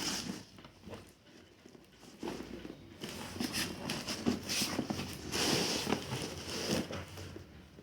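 Cardboard shipping packaging being handled as the boxed drill is taken out: irregular rustling and scraping with light knocks, busiest from about two seconds in until near the end.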